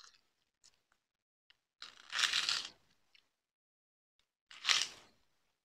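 Crunching of a crisp prawn cracker being bitten and chewed: a longer crunch about two seconds in and a shorter one near the end.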